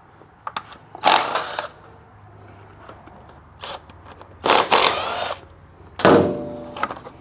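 Cordless power driver spinning bolts out of a dirt bike's skid plate in three short bursts, each a rising whine, with a few light clicks before the first.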